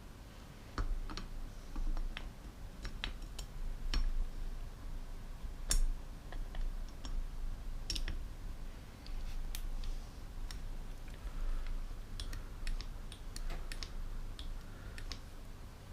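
Irregular light clicks and taps of small metal parts and hand tools being handled on a two-stroke motorcycle cylinder's powervalve assembly, starting about a second in.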